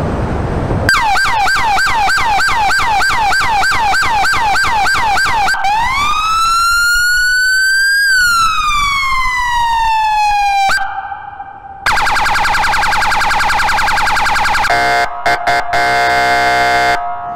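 Police car electronic siren run through its tones: a fast yelp of about four sweeps a second, then a slow wail that rises and falls once, then a very rapid warble, then the horn tone, sounded as several short blasts and then held.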